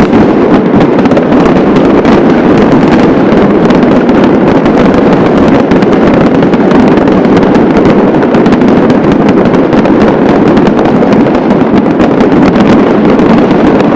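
Dense, continuous barrage of fireworks and firecrackers: countless bangs and crackles overlapping without a break, very loud throughout.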